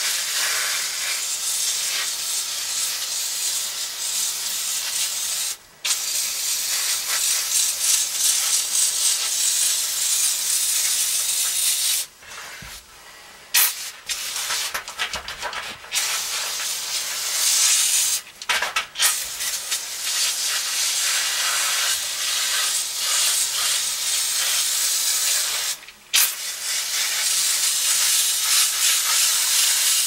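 Aerosol can of foaming coil cleaner hissing as it is sprayed onto an air conditioner's evaporator A-coil, in long sprays broken by a few brief pauses.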